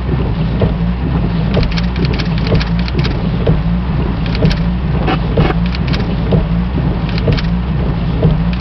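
Vehicle engine and road noise heard from inside the cab while driving: a steady low drone with scattered small rattles and clicks.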